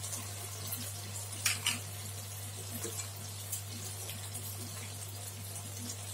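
Slices of khanom kheng (sticky rice cake) deep-frying in a wok of hot oil: a steady sizzle with scattered small crackles. There are two sharp clicks about a second and a half in, likely the metal tongs knocking the pan.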